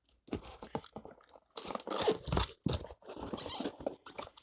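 Packaging being handled: irregular crinkling, crunching and scraping of plastic and cardboard as parts are taken out of a box.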